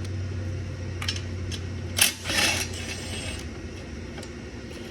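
Metal clinks and a short rattle of tools and bolts as engine shrouds are unbolted: a few sharp clicks, then a loud clink and rattle about two seconds in. A low steady hum runs underneath and stops at about the same time.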